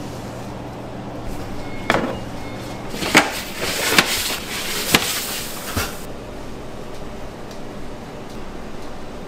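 Bakery kitchen work: a handful of sharp knocks and clatter of tools on a work surface, about a second apart, with a rustling scrape in the middle, over a steady low hum of equipment.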